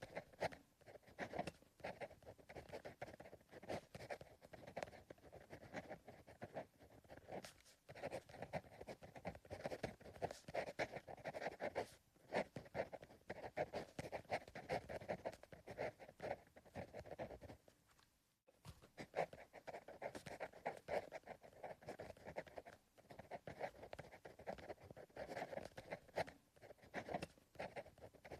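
Pencil writing on paper: a steady run of short scratching strokes, with brief pauses, the longest about two thirds of the way through.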